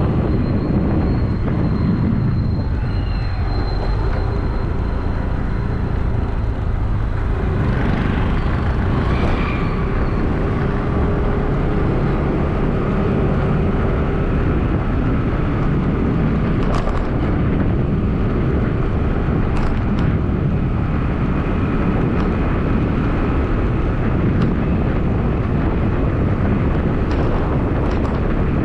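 Steady rumble of a car driving: road and engine noise heard from the vehicle, with faint sounds of other traffic now and then.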